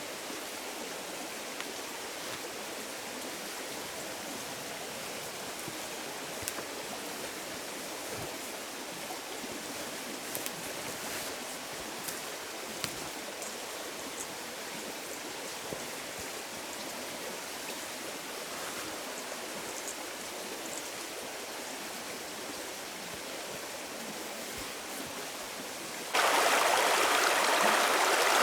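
Steady rushing of running water with a few faint clicks; about two seconds before the end the water abruptly becomes much louder.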